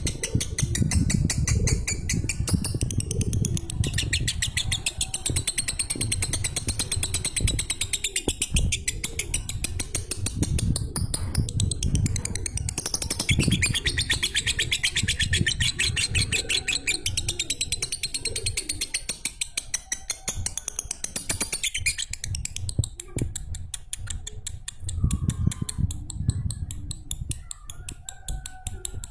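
Lovebird ngekek: a long, unbroken, very fast high-pitched chattering song that thins out over the last several seconds, over a low background rumble.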